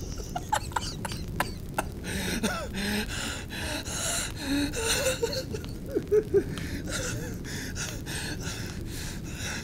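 Breathing in audible breaths, with scattered sharp clicks over a steady low background noise.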